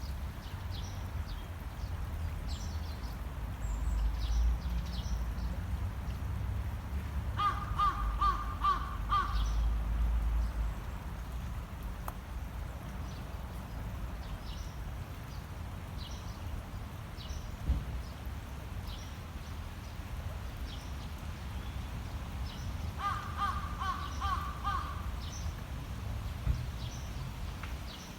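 Shallow river water burbling steadily over stones, with a low rumble and scattered small high ticks. Twice, about eight seconds in and again near twenty-three seconds, a bird gives a rapid series of about eight harsh calls.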